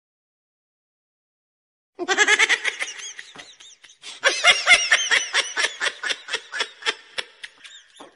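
Silence for about two seconds, then high-pitched giggling laughter in quick bursts, dipping briefly around four seconds in before picking up again.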